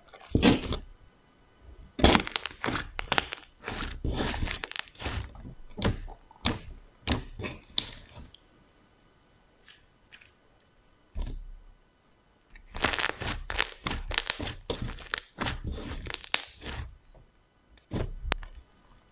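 Soft pink fluffy slime being stretched, folded and pressed by hand on a table, giving bursts of crackling and popping as the air bubbles in it burst. There is a quiet lull in the middle.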